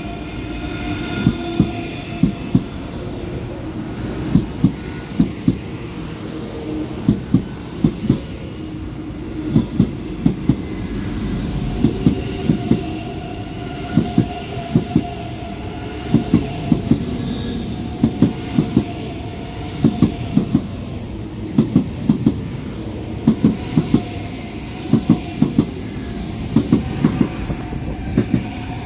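ICE 3 high-speed electric trains rolling slowly along the platform, their wheels clacking over rail joints in quick pairs and clusters again and again, over a steady rumble and whine.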